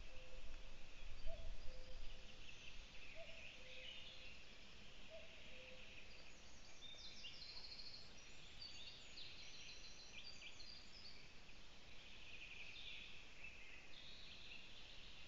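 Forest birdsong at dawn: several songbirds singing high, quick phrases and trills, busiest in the middle. In the first six seconds a lower two-note call repeats about once a second over a low rumble.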